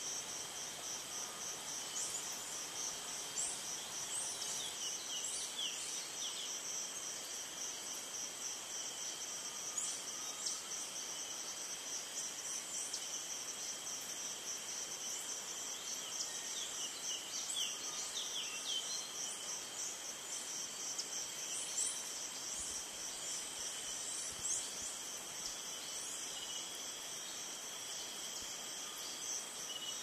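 Rainforest insect chorus: several insects trilling steadily at high pitch, one band pulsing rapidly, with scattered short high chirps that come in clusters.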